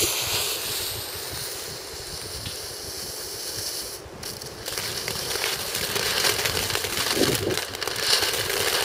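Small Keller Vulkan firework fountains burning: a steady spitting hiss of sparks with dense crackling, growing louder and busier about five seconds in.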